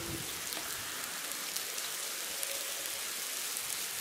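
A mass of large ants swarming over a crumpled plastic bag, their feet on the plastic making a steady, dense crackle of tiny ticks.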